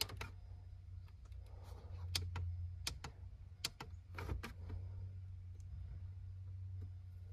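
A few light, sharp clicks and taps scattered over several seconds above a steady low hum. The newly installed car radio puts out no sound at all.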